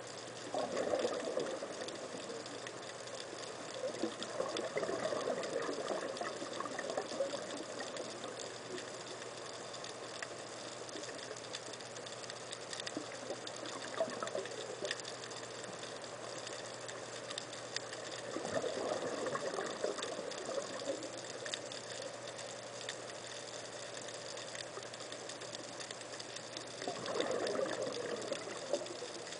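Underwater recording of a scuba diver's exhaled bubbles rushing from the regulator in four separate bursts of a second or more each, one per breath. Between the bursts there is a steady underwater hiss with faint ticking.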